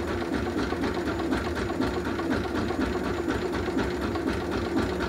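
Small boat engine running steadily, with a rapid, even mechanical chatter.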